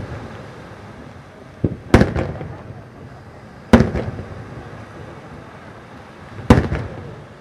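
Aerial firework shells bursting: three loud booms about two seconds apart, each trailing off in echoes, with a smaller pop just before the first.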